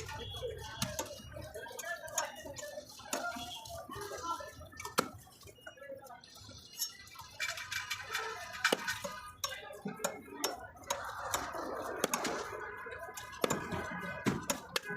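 Busy market bustle: overlapping voices under frequent sharp knocks and metallic clinks, typical of fish being cut and handled with a knife on a board.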